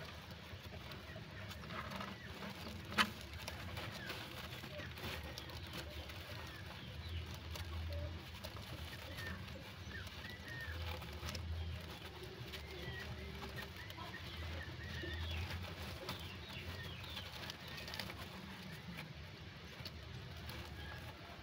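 Faint, scattered, bird-like chirps and short squeaks over a low background murmur, with one sharp click about three seconds in.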